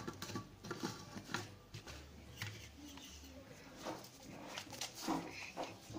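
Light plastic clicks and knocks of a personal blender's cup being handled as its blade lid is screwed on; the blender's motor is not running.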